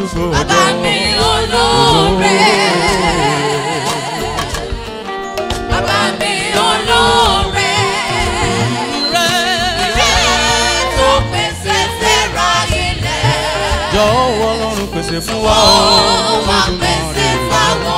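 A man singing a gospel song through a microphone, with wavering held notes, over steady instrumental backing.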